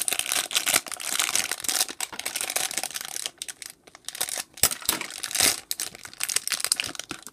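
A yellow plastic blind-bag packet crinkling and crackling as it is handled and torn open, with many sharp crackles and a brief lull about halfway.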